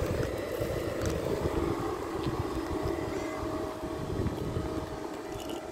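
Steady low outdoor rumble with a faint steady hum above it, no distinct single event.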